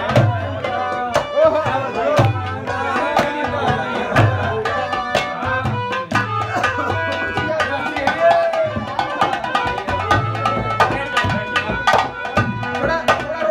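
Dholak and nakkara drums playing a steady folk rhythm, with harmonium holding notes over them: the instrumental accompaniment of a Haryanvi ragni.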